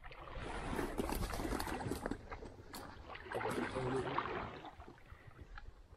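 Shallow stream water sloshing and splashing in two uneven surges, with small clicks and knocks.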